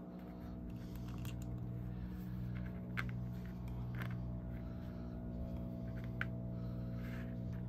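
A steady low electrical hum, with a few faint clicks of small plastic action-figure pieces being handled.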